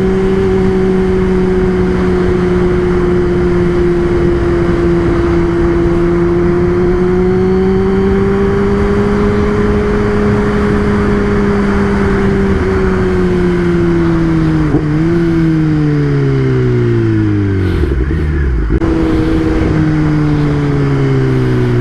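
Kawasaki ZX-10R's inline-four engine running at steady revs under way, over steady wind and road rush. Past the middle the revs fall away as the bike slows, with one short blip partway down, then settle at a lower steady pitch near the end.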